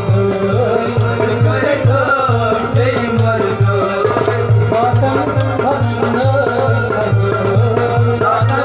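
Kashmiri folk song played live: a harmonium melody with a hand drum keeping a steady low beat, and a man singing over them.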